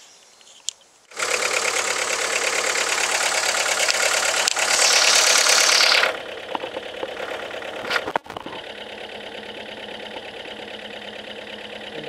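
VW Lupo 1.4 16-valve four-cylinder petrol engine starting about a second in and running, with one coil pack unplugged so that cylinder is not firing. It is loud for its first few seconds, then settles to a steadier, quieter idle.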